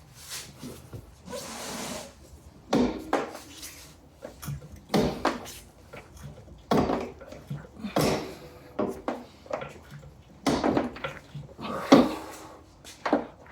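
Irregular knocks, clanks and scrapes of hand tools and metal parts being handled during a tire change, about one every second or two, some with a short ring. A short hiss sounds about a second and a half in.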